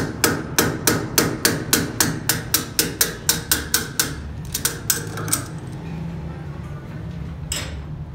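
A steel bar taps rapidly against a tapered roller bearing, metal on metal, about three sharp strikes a second, driving the bearing along a Sinotruk Howo 290 front wheel spindle. The tapping fades and stops about five seconds in, leaving a steady low machine hum, with a brief rush of noise near the end.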